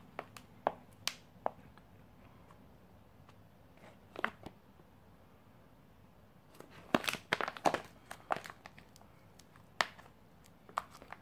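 Sealed plastic field-ration pack crinkling and crackling as it is handled: irregular sharp crinkles, busiest in a flurry about seven seconds in.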